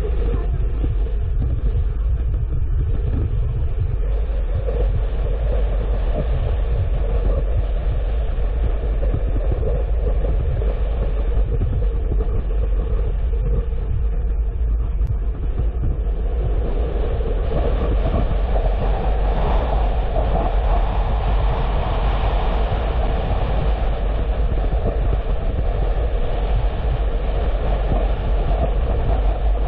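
Steady road and engine rumble of a car driving along. About halfway through, a higher rushing noise grows louder.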